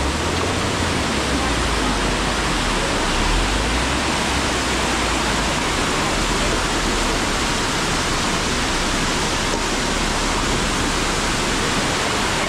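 Fast mountain stream rushing over rocks in white water: a loud, steady, unbroken rush of water close by.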